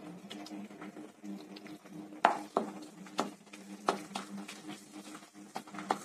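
Sliced onions being stirred in hot oil in a frying pan, with irregular sharp knocks and scrapes of a spatula against the pan over a light frying sizzle. The loudest knocks come a little after two seconds in.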